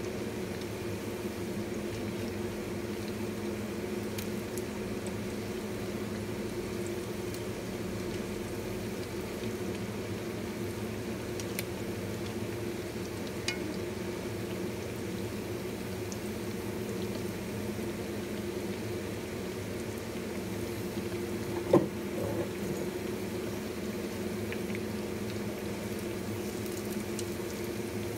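Oil bubbling and sizzling steadily around battered pork chops deep frying in a wok, over a steady low hum. A single sharp knock about three-quarters of the way through.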